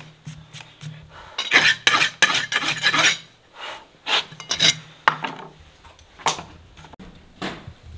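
Steel hoof rasp scraping across a horse's shod hoof wall in repeated strokes, with a quick run of strokes about two seconds in and shorter, scattered strokes after.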